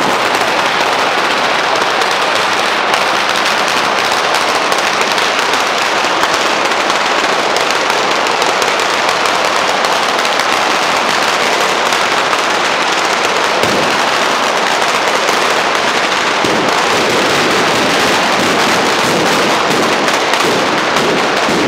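A traca, a long string of firecrackers, going off in a dense, unbroken crackle of rapid bangs.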